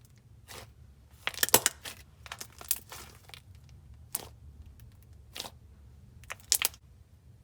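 Slime being squished and stretched by hand, giving sharp crackling clicks and pops in several clusters, the loudest about one and a half seconds in.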